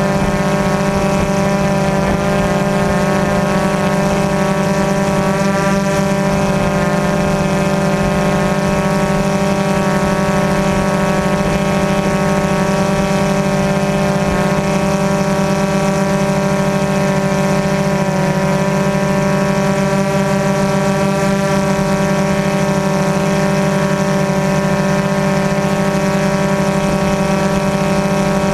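Multirotor drone's electric motors and propellers running as it hovers, picked up by its own onboard camera: a loud, steady hum of fixed pitch that wavers slightly now and then.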